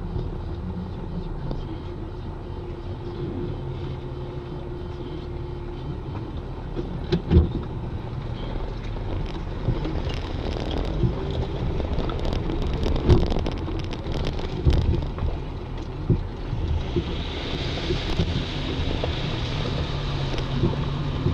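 Off-road 4x4's engine running steadily at low speed, heard from inside the cab, with the body knocking and rattling over a rutted dirt trail. A steady hiss joins in near the end.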